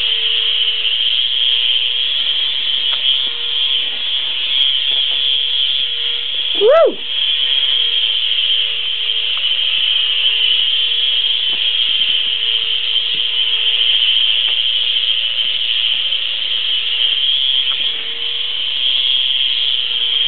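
Small electric radio-controlled toy helicopter flying, its motor and rotors giving a steady high whine, with a single meow from a cat about seven seconds in.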